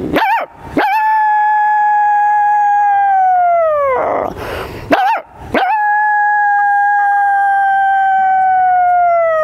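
A woman imitating a dog's howl with her own voice: two long howls, each held steady for about three seconds and sliding down in pitch at the end, with a sharp breath between them. It is the howl that, as she tells it, a dog gives as a bad sign, when something bad is about to happen.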